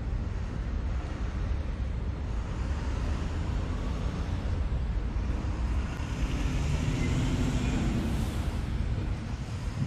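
Steady city traffic rumble, growing louder for a few seconds past the middle as a vehicle goes by.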